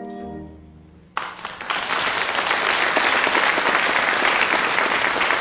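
The pit orchestra's final held brass chord dies away, then audience applause breaks out suddenly about a second in and goes on steadily.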